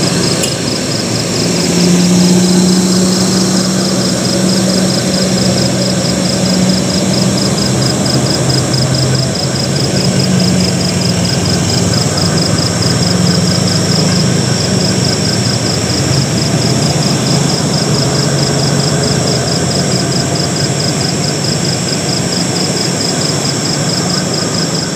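Heavy trucks and cars climbing a steep hill road, their engines making a steady low drone that grows louder about two seconds in and wavers slightly in pitch.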